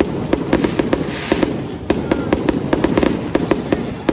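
Aerial fireworks going off in a rapid barrage: sharp bangs and cracks, several a second, over a continuous rumble.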